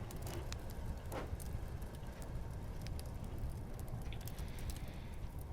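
Wood fire crackling, with scattered small pops and snaps over a steady low rumble.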